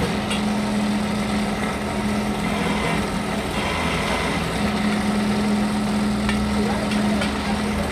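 Pillar drill running with a steady motor hum as its bit drills rivet holes through the new friction lining on a truck brake shoe.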